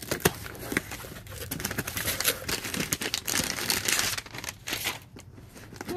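A cardboard box being opened by hand: the flaps pulled back, then a run of crinkling and rustling as the white wrapping around the item inside is handled and lifted out.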